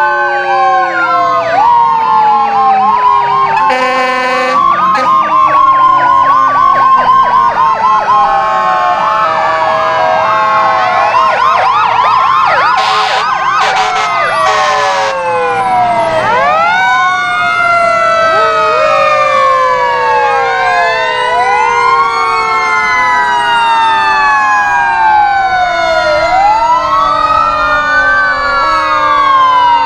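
Several fire truck sirens wailing at once, their rising and falling sweeps overlapping, with louder blaring blasts about four seconds in and again around thirteen to fifteen seconds in.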